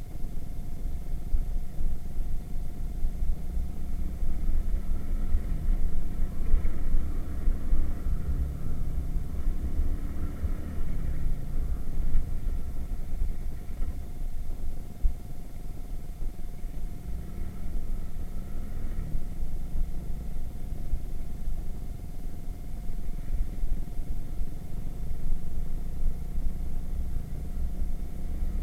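Irbis Virago 110cc four-stroke single-cylinder moped engine running under way, its pitch rising and falling with the throttle, buried under heavy wind rumble on the action camera's built-in microphone.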